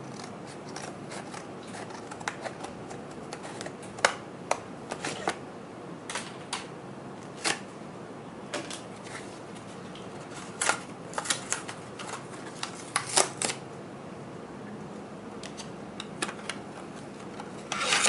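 Scissors cutting open a stiff plastic blister pack holding an SSD, with irregular snips, crackles and rustles of the plastic as it is cut and pulled apart.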